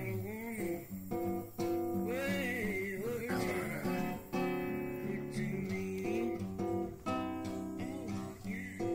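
Background music: acoustic guitar strumming chords in a steady rhythm.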